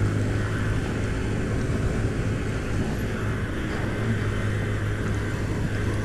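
Honda CB300 motorcycle's single-cylinder engine running steadily at cruising speed, with steady wind and road noise over the microphone.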